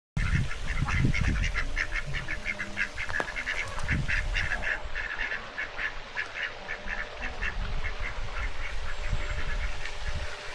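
A flock of ducks quacking in a rapid, overlapping chatter that thins out near the end, over a low rumble.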